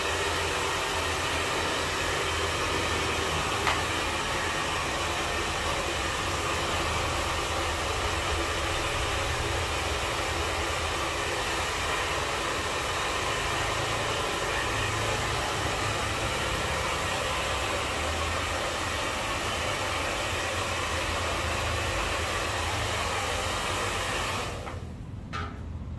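Hair dryer blowing steadily, switched off about a second and a half before the end, followed by a few light clicks.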